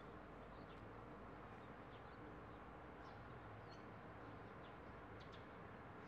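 Faint, scattered short chirps from Eurasian tree sparrows, roughly one every second, over a low steady hiss.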